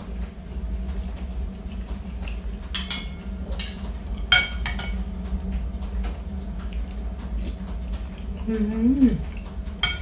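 Metal fork and spoon clinking against a ceramic bowl and plate during a meal, with a few sharp ringing clinks about three and four and a half seconds in, over a steady low hum. A short hummed vocal sound comes near the end.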